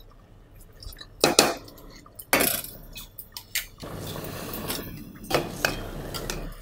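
Basmati rice tipped into an aluminium pressure cooker and stirred into a wet gravy with a metal ladle: a few sharp knocks of metal on the pot, then a steady scraping rustle of the ladle working through the rice, with two more knocks near the end.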